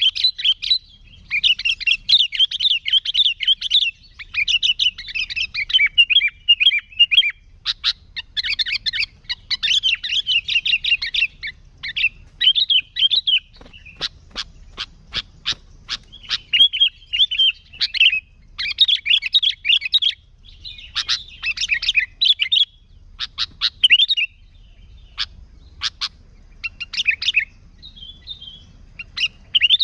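Sooty-headed bulbul (kutilang) singing vigorously: bursts of quick, chattering, warbling phrases one after another with short gaps, and a run of sharp clicking notes about halfway through.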